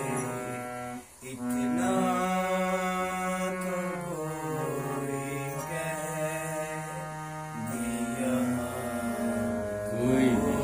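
A man singing a slow Urdu folk melody to harmonium accompaniment: long held notes over a steady drone, with a short break about a second in and sliding, ornamented vocal lines near the end.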